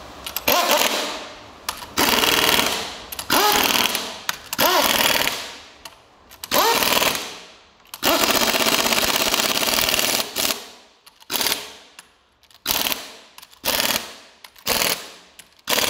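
A compressed-air tool worked in about ten short bursts, each cutting in sharply and dying away, the longest about two seconds just past the middle.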